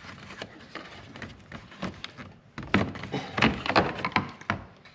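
Hard plastic clicking and knocking as a moulded plastic blank cover is pushed out of its retaining clips in a Can-Am Defender's front fascia. The knocks come thickest and loudest in the second half.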